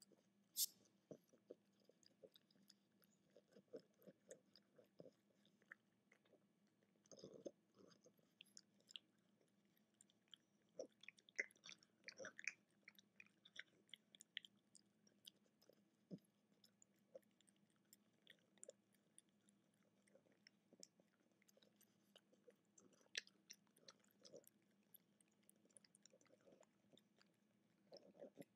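French bulldog puppy chewing a Greenies dental chew: faint, irregular crunching and wet clicking of teeth and jaws, busiest around the middle.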